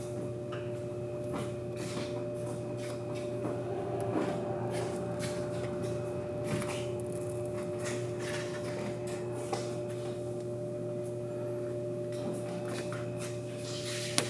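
A thick 20 mil temporary protective film being peeled off a car's side skirt and wheel-arch edge, giving irregular crackles and ticks, with one sharp click near the end, over a steady hum.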